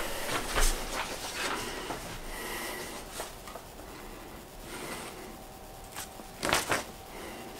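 A sheet of paper rustling as it is handled, in scattered short rustles, with a louder rustle about six and a half seconds in.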